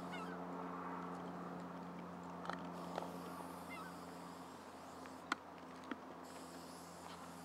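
Geese honking a few times over a steady low hum, with several sharp clicks, the loudest about five seconds in.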